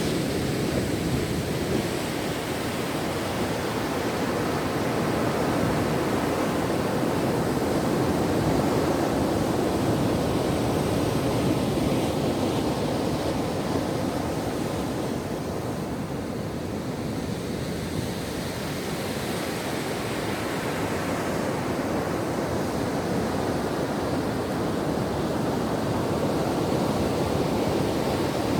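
Ocean surf: a continuous rushing wash of waves on a shore, slowly swelling and easing.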